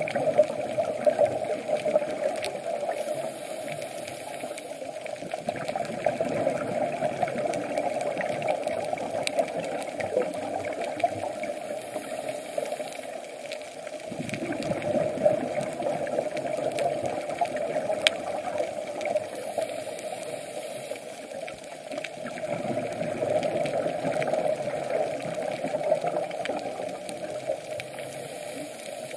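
Underwater sound heard through a camera housing: a steady muffled hum with a scuba diver's regulator breathing, exhaled bubbles rushing in surges every several seconds.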